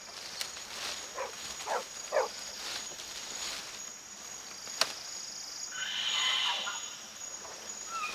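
Tropical rainforest ambience: a steady high insect drone, with three short rising animal calls in the first couple of seconds, a single sharp click near five seconds, and a brief buzzy call around six seconds in.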